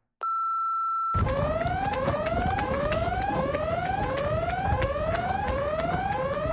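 Edited-in emergency alarm sound effect. A short steady electronic beep is followed about a second in by a rapidly repeating rising whoop, roughly one and a half sweeps a second, over fast ticking.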